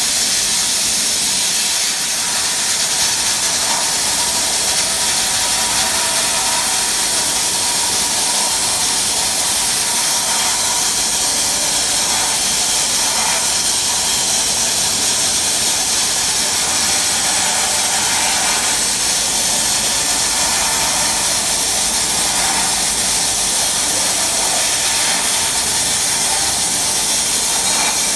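Compressed-air blast nozzle in a sandblasting cabinet, firing abrasive at a metal casting: a loud, steady hiss that goes on without a break.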